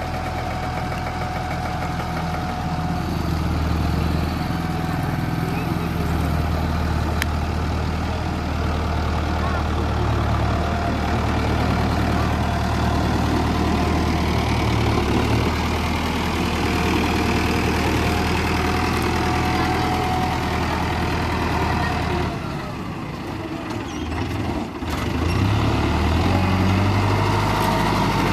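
Mahindra Arjun Nova 605 DI-i tractor's diesel engine running steadily. It drops quieter for a couple of seconds near the end, then picks up louder again.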